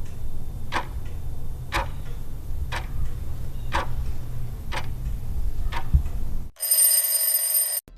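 Countdown clock-ticking sound effect marking thinking time: a tick about once a second over a steady low rumble. About six and a half seconds in, the ticking stops and a bright ringing tone sounds for about a second, signalling that time is up.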